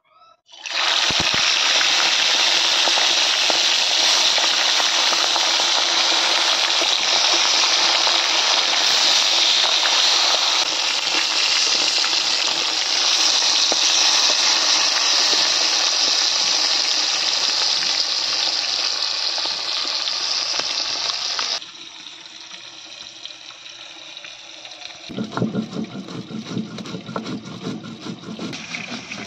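Pieces of rui fish frying in hot oil in a karahi: a loud, steady sizzle that starts about a second in and cuts off after about twenty seconds. Near the end a stone roller grinds spices on a flat grinding stone (shil-nora), making a rough, uneven scraping.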